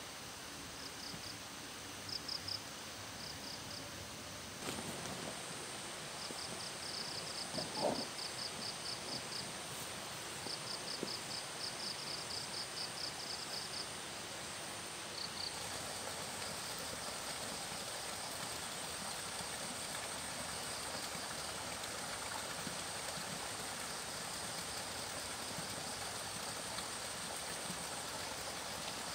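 Evening outdoor ambience of chirping insects: trains of quick, evenly spaced high chirps, about five a second, over a steady high insect drone and a constant soft hiss. The chirp trains die away around halfway, leaving the drone and hiss; a brief rising sound stands out about eight seconds in.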